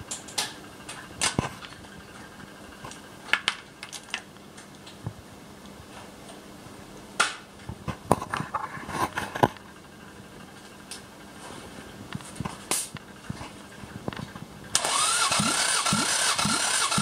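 Scattered clicks and knocks of a compression-gauge hose being threaded into a spark-plug hole. Then, about fifteen seconds in, a starter motor suddenly cranks the Toyota 1AZ-FE 2.0 L four-cylinder engine for a compression test: a steady whirring with a low pulse about twice a second.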